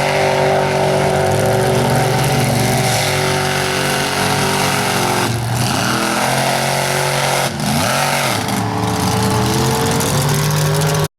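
Supercharged mega truck engine running hard at high revs through a mud bog, the revs dropping and climbing back twice. The sound cuts off abruptly near the end.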